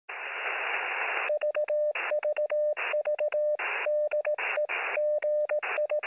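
Radio static hiss, then a steady Morse code tone keyed in quick dots and dashes, with bursts of static in the gaps between characters.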